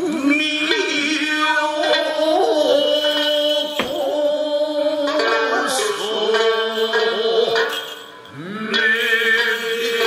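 Jōruri narrative chanting accompanying a puppet play: a voice holding long notes that slide up into pitch, with shamisen-like plucked notes. There is a brief lull about eight seconds in before the chanting resumes.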